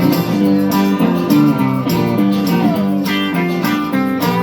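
Live band playing a song's instrumental passage between sung lines: strummed guitars carrying steady chords, with light percussion.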